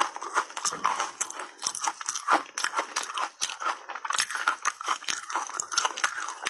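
Chewing and crunching on a slab of reshaped ice coated in matcha powder, big bites cracking apart in the mouth, with many sharp cracks and crunches a second.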